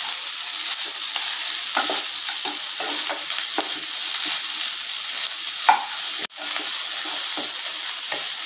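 Spatula stirring and turning poha (flattened rice) with potatoes in a non-stick frying pan, in many irregular scraping strokes over a steady sizzle of the food frying in oil.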